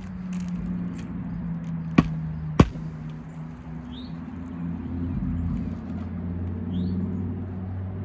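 Two sharp strikes of a roofing hatchet driving a nail into an asphalt shingle, about half a second apart, over a steady low hum.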